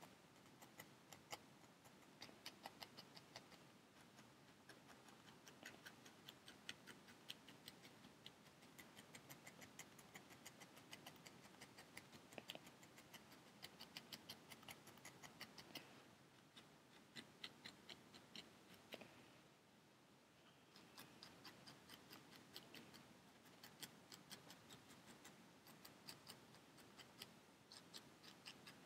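A barbed felting needle stabbing rapidly into a wool ball over a foam pad: faint quick clicks, several a second, in runs with short pauses, as the ball is sculpted smooth where it is bumpy.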